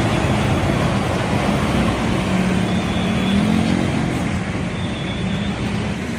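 Bus engine running with road and traffic noise as a bus goes by; its pitch rises briefly about halfway through, then the sound slowly fades.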